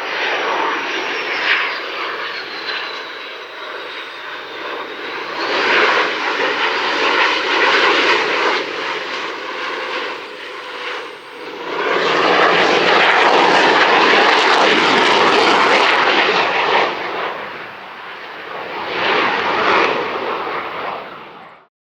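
Boeing EA-18G Growler jets' twin General Electric F414 turbofan engines roaring, swelling and fading in waves. A high whine slides downward in the first few seconds, and the roar is loudest around the middle. The sound cuts off abruptly just before the end.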